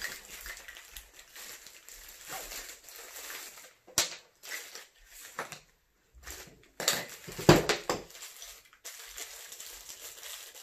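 Handling noise as a small drawstring or zip bag is opened and a compact tripod is taken out: intermittent rustling, a sharp click about four seconds in, and a louder burst of rustle and clatter around seven to eight seconds.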